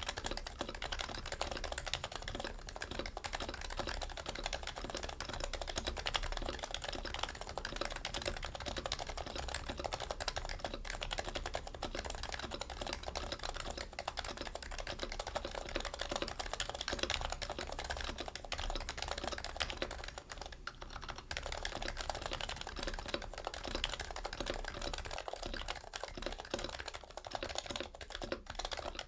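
Steady, fast typing on an HHKB Pro Hybrid Type-S keyboard with its stock Topre electro-capacitive rubber-dome switches (45 g domes) and stock keycaps. The keystrokes come in a dense run, with a short pause about twenty seconds in.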